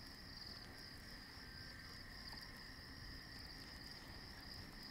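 Faint chorus of crickets chirping in a steady, pulsing trill, with a second, lower steady insect tone and a low rumble beneath.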